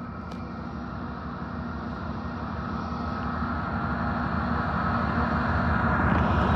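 Train locomotive approaching, its low engine rumble and steady hum growing steadily louder as it nears.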